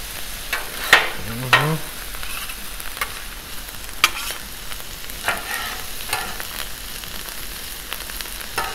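Chorizo and vegetables sizzling on the steel cooktop of a 36-inch Blackstone griddle, while two metal spatulas scrape and clack against the steel, chopping and turning the food. There are sharp scraping strokes about every second over the steady sizzle.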